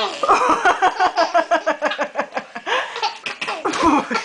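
A baby laughing hard, a hearty belly laugh in a long, rapid run of ha-ha pulses, about five a second.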